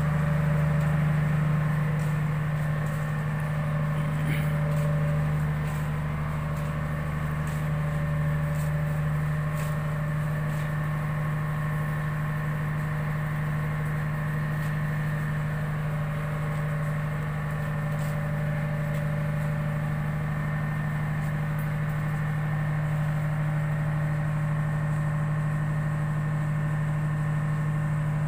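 A ship's engine running with a steady, unbroken low hum.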